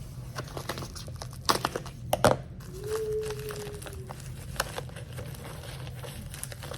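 A package being opened by hand: packaging crinkling and rustling, with several sharp rips and snaps between about one and a half and two and a half seconds in, and a short steady squeal about three seconds in.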